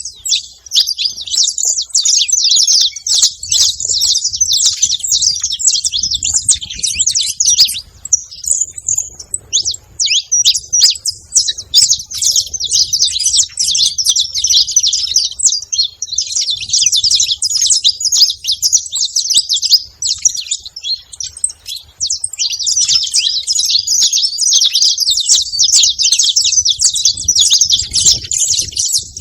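Saffron finches calling in dense, rapid high-pitched chatter, in long runs broken by a few short pauses.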